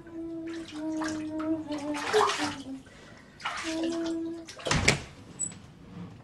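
Water splashing in a bathtub behind a closed bathroom door, in several short bursts, with short held tones between them. A louder thump comes about five seconds in.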